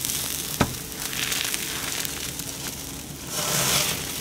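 Hot grilled tomahawk steaks sizzling as they are lifted off a very hot grill and laid on a wooden cutting board. The sizzle swells twice. One sharp knock about half a second in, as a steak meets the board.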